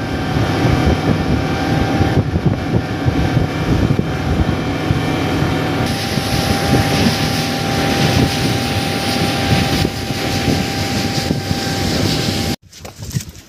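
Boat engine running steadily under way, with a faint steady whine over rushing wind and water; it cuts off abruptly about a second before the end.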